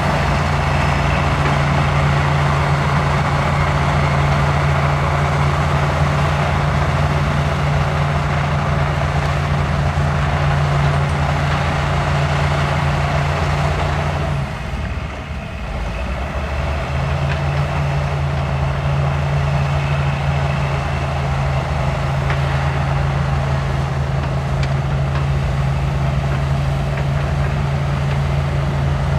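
Diesel engine of heavy earthmoving machinery (bulldozer or excavator) running steadily, with a brief dip in level about halfway through.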